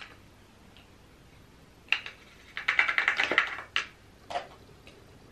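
A pot of loose translucent powder and a makeup brush being handled: a click about two seconds in, then a quick run of light taps lasting about a second, then two more single clicks.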